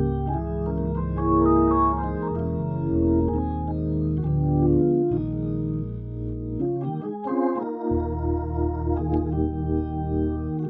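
Viscount Legend drawbar organ, a Hammond-style clonewheel, played in a gospel style: sustained chords over a heavy bass line. About seven seconds in the bass drops out briefly, then comes back as a quick, repeated pulsing figure under higher chords.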